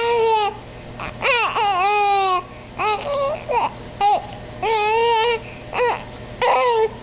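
A seven-month-old baby crying and fussing in a string of short, wavering cries, about seven in a row, some of them very brief.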